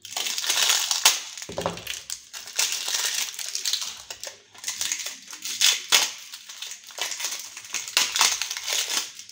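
Crinkling, rustling handling noise with many irregular sharp clicks as a new replacement TV speaker is handled, typical of its wrapping being crumpled.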